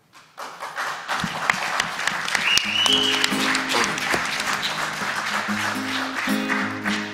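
Audience applauding, with a classical guitar starting to pick a slow introduction about three seconds in, under the applause.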